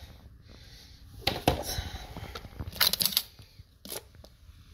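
Stainless steel draw latches on a hard bait cooler being flipped open, with several sharp metal clicks, then the lid being lifted.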